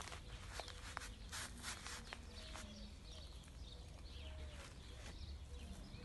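Faint rustles and taps of bare feet stepping through shallow tubs on a lawn, the last holding water, with small birds chirping now and then in the background.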